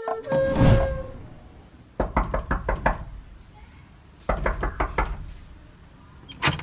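Knocking on a wooden door: two quick bursts of about five knocks each, about two seconds apart. A brief whoosh comes before them, and a single sharp bang near the end.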